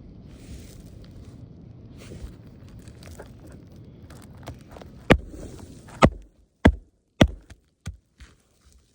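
Sharp knocks on a shingle roof during a shingle repairability test: low rumbling and faint clicks, then from about five seconds in four loud knocks roughly half a second to a second apart, followed by two fainter ones.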